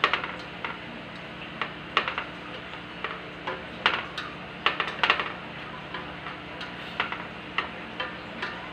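A spatula scraping and clacking against a stainless steel pan as pork hock pieces are stirred in sauce, with irregular sharp clicks about once or twice a second. A low steady hum runs underneath.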